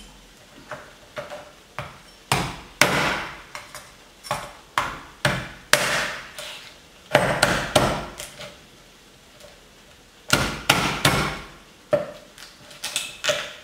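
Cleaver chopping through a raw lobster's body shell on a wooden cutting board: a long run of sharp knocks, about two a second, pausing for a couple of seconds past the middle, then quicker again near the end.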